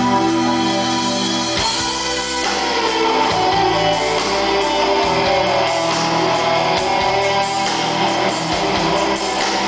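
Live rock band playing loud electric guitars; the sustained chords give way to a busier passage about two seconds in.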